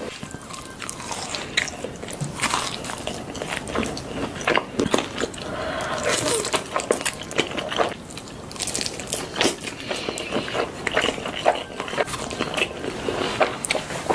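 Mukbang eating sounds: repeated biting and chewing, with crunches of fried chicken and slurps of black bean sauce noodles.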